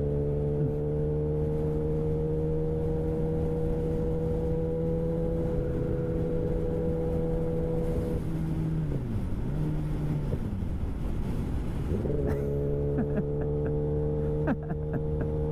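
Kawasaki Ninja sport bike's inline-four engine at highway cruise with wind and road noise, its note steady and climbing slightly. About eight seconds in the engine note dips and wavers for a few seconds, then settles back to a steady pitch.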